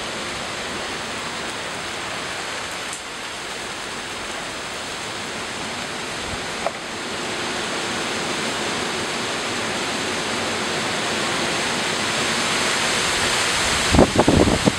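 Rain falling on leaves, a dense, even hiss that gets a little louder about halfway through. Near the end, a quick run of low thumps cuts in over it.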